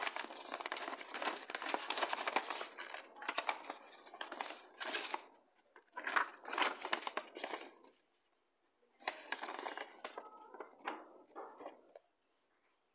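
Plastic wrapping and a folded paper sheet crinkling and rustling as they are handled and unfolded, in several bursts with short pauses between.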